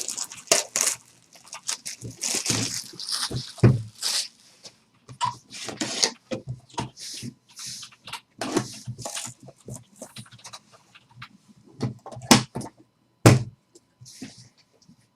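Trading card hobby box and its pack being opened by hand: a run of rustling, tearing and scraping of wrapper and cardboard, with two sharp knocks near the end.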